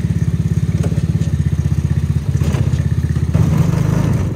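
X-Pro 125cc mini Jeep's small single-cylinder engine running with a rapid, steady putter, with a few light knocks, growing a little louder about three and a half seconds in.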